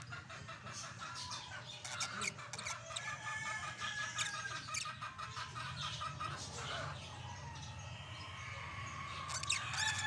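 A pair of budgerigars chattering: a continuous run of quick, short chirps and warbling calls.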